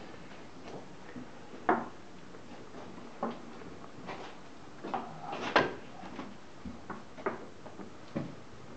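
Sharp, irregular knocks of wooden chess pieces being set down on boards and chess clock buttons being pressed, about eight or nine in all, the loudest about five and a half seconds in.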